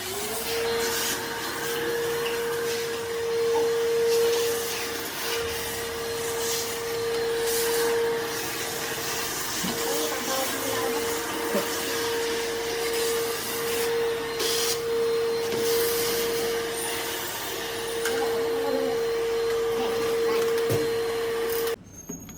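Makita VC008G cordless backpack vacuum running, its motor whine rising a step in pitch at the start as it speeds up, then holding steady over rushing air with occasional clicks. It cuts off suddenly near the end.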